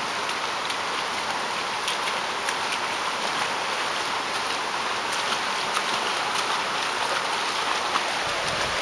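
Steady hiss of water from the flooded yard, with faint scattered ticks like drops.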